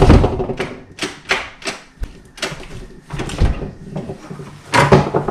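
Irregular knocks, clicks and scuffs of hands and tools working against a wooden door, loudest at the start and again near the end.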